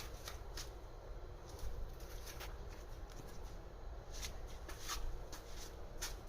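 Thin aluminium sheet being handled: light crinkling rustles and scattered sharp clicks, irregular and faint, over a low steady rumble.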